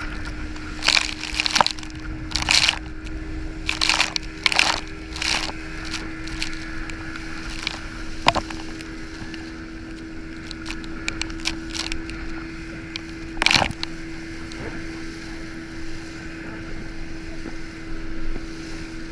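Inflatable banana boat towed at speed over choppy sea: the towing speedboat's engine gives a steady hum under rushing water and wind. Spray hits the chest-mounted camera in a run of sharp splashes over the first few seconds and one louder splash about two-thirds through.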